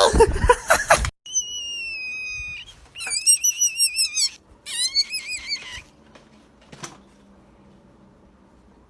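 A loud sung voice cuts off about a second in. Then come high whistle-like calls: one long, slightly falling note, then two wavering, warbling runs, after which it goes quiet.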